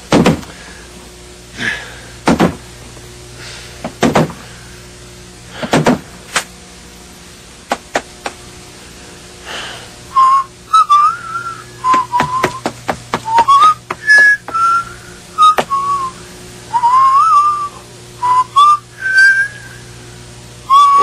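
A few scattered thumps and knocks, then from about halfway a man whistling a casual, wandering tune in short phrases, with sharp clicks between the notes.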